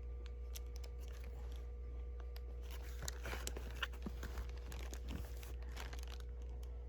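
Packaging being handled and opened: crinkling and tearing of wrapping in a run of short crackles, thickest from about three to five and a half seconds in, over a steady low electrical hum.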